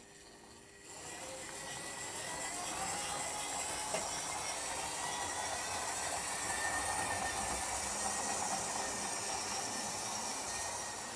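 Model train running on the layout track: a steady rolling rattle of wheels on rails with a faint motor whine that comes up about a second in and rises slightly in pitch as the train gathers speed.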